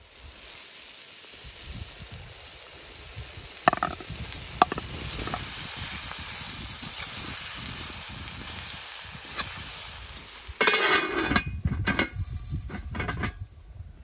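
Onions and carrots sizzling in oil in a cast-iron cauldron, the hiss swelling over the first few seconds, with two sharp metallic clinks about four seconds in. From about ten and a half seconds a metal slotted skimmer stirs and scrapes through the meat and vegetables against the iron for about three seconds.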